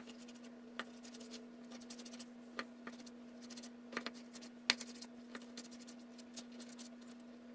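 Kitchen knife slicing through raw chicken thighs, its blade tapping faintly on a plastic cutting board several times at uneven intervals, over a steady low hum.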